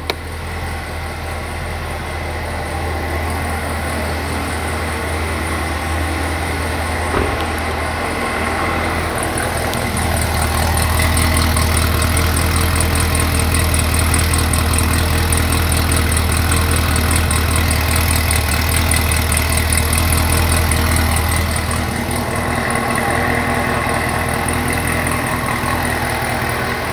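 Supercharged 6.2-litre LT4 V8 of a Chevrolet Camaro ZL1 1LE, fitted with headers, idling steadily through its quad-tip exhaust with a deep, even rumble. It grows louder over about the first ten seconds, then holds steady.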